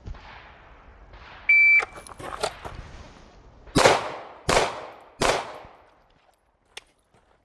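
A shot timer's short high beep, then three pistol shots in quick succession, about two-thirds of a second apart.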